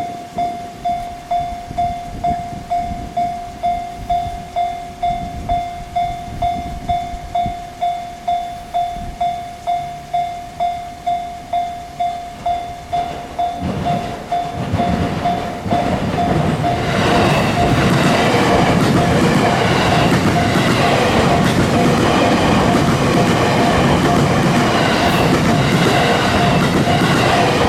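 Japanese level-crossing alarm ringing in a steady pulse, about two rings a second. About 14 seconds in, an E257-series limited express train approaches and passes over the crossing, and its running noise drowns the alarm, which keeps ringing underneath.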